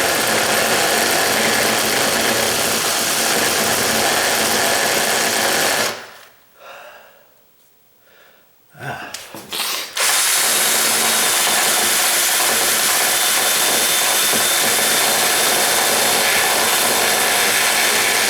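Power drill running with a drill bit used sideways to ream out wood at a door strike plate opening. It runs steadily for about six seconds, stops, gives a few short blips, then runs steadily again from about ten seconds in.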